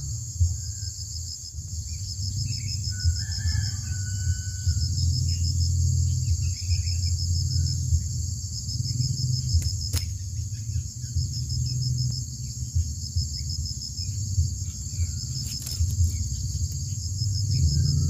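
Steady, high-pitched insect chorus with an even pulsing rhythm over a low, uneven rumble, with a few faint bird chirps a few seconds in.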